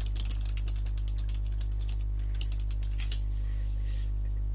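Typing on a computer keyboard: a quick run of keystrokes, then a few scattered key presses. A steady low electrical hum runs underneath.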